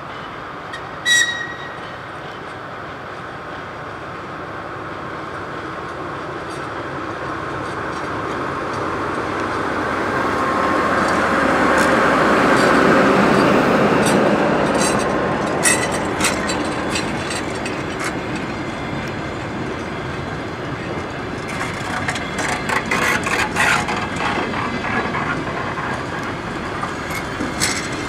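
DR1A diesel multiple unit pulling out of a station. A short horn blast sounds about a second in. The diesel engine then grows louder as the power car passes, loudest about halfway, and eases as the carriages roll by with their wheels clicking over the rail joints.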